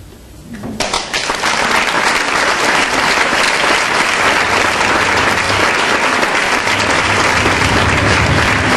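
Theatre audience applauding. The applause breaks out about a second in after a brief hush, rises quickly and holds steady.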